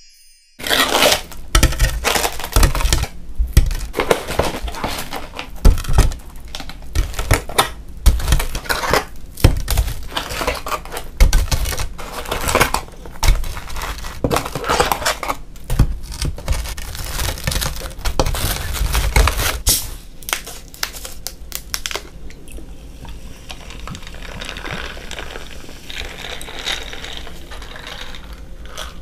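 Paper and cardboard takeout packaging crinkling and rustling with many close, sharp crackles as fried cheese sticks are unpacked and handled. The crackling stops about 22 seconds in, giving way to quieter handling sounds.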